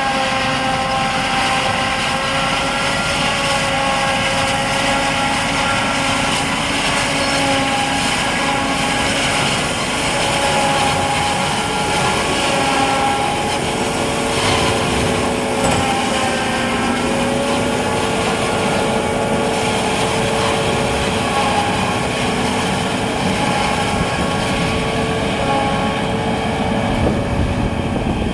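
Senrui 2.6 m self-propelled silage harvester running steadily: a constant machine hum with several held tones that waver slightly in pitch.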